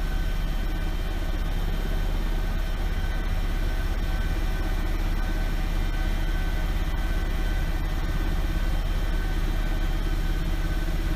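Quadcopter drone's propellers and motors humming steadily, several fixed whining tones over a low drone.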